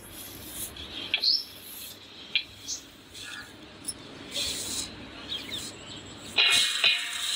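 A bird chirping a few short rising chirps. Cut jackfruit pieces are handled in a steel bowl with light knocks, and there is a louder rustling scrape near the end.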